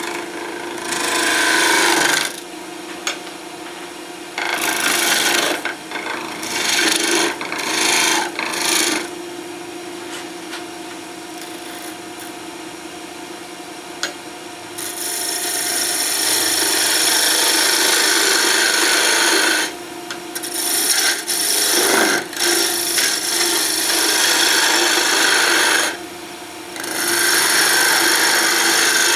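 Delta wood lathe running with a steady hum while a turning tool cuts the spinning cherry blank in repeated passes. Each cut is a loud shaving hiss lasting a few seconds, the longest in the middle, with quieter stretches of only the lathe between them.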